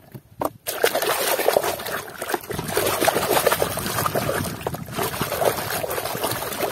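Water splashing and sloshing in a basin of soapy water as a hand scrubs a toy vigorously under the surface. A few faint taps come first, then the churning splashes start suddenly under a second in and keep going unevenly.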